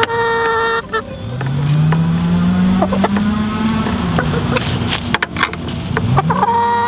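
Cordless drill run in long pulls: the motor whine rises in pitch, holds for a couple of seconds, then winds down, and starts rising again near the end, with some clicking. A hen calls briefly at the start and again near the end.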